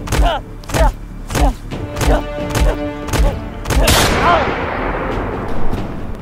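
Fight sound effects: about six heavy punch impacts, roughly one every two-thirds of a second, each followed by a pained grunt, over a low music drone. About four seconds in, a loud rushing swell hits and a man cries out as it fades.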